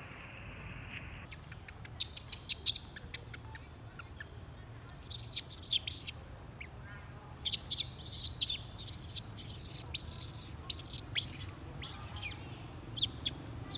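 Rapid, very high-pitched chirps and squeaks from a small animal, starting about two seconds in and coming thickest in the second half, over a steady low hum.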